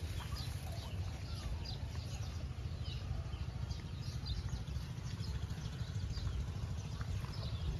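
Birds chirping all around, many short high calls overlapping, over a steady low rumble.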